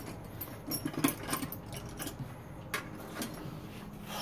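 Small metal clicks and clinks as the nuts are worked off the pillars of a brass clock movement's plate, a handful of separate ticks over a few seconds, with a faint steady hum underneath.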